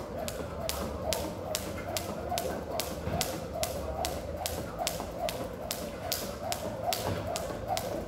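Jump rope slapping a concrete floor in a steady rhythm, about three sharp taps a second.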